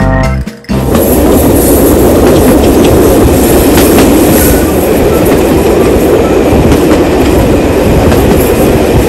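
Jacobite steam train's carriages running along the track, heard from a carriage window: a steady, loud rush of wheel-and-rail noise that cuts in just under a second in.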